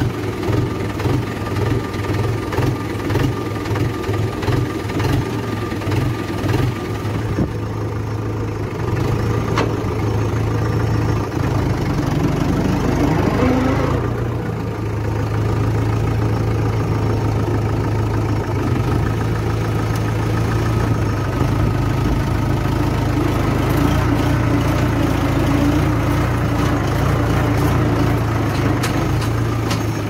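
Mahindra 575 tractor's four-cylinder diesel engine running as the tractor is driven; its low note pulses unevenly for the first several seconds, then settles steadier and a little louder from about twelve seconds in, with a brief rise in pitch just after.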